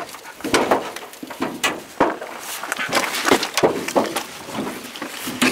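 Irregular knocks, bumps and scrapes of a person squeezing into a cramped compartment, body and boots bumping and rubbing against its walls.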